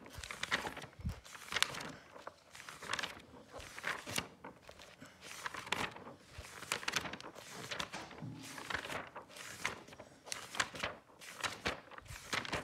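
Glossy pages of a Panini football sticker album being leafed through and handled, paper rustling and flapping in quick irregular strokes.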